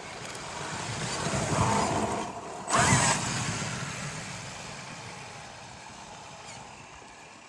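Traxxas X-Maxx electric RC monster truck driving over rough ground: motor and tyre noise growing louder, a sharp loud hit a little under three seconds in, then fading steadily.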